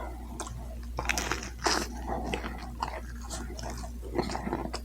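Close-up chewing of a crispy fried boneless chicken wing: irregular wet crunches and clicks of the breading, one stronger crunch nearly two seconds in.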